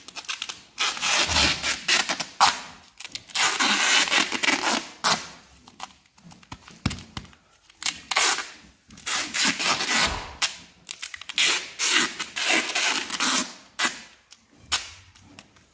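Duct tape being pulled off the roll in a series of short, irregular rasping strips as it is wound around a horse's poulticed hoof.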